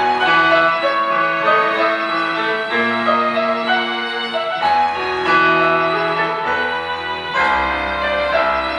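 Instrumental music played on a Nord Stage 2 keyboard, with piano and string sounds. Held chords sit over a low bass note that changes every couple of seconds.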